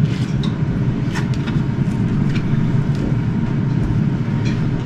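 Air fryer running as it preheats: a steady low whirring hum from its fan and heater.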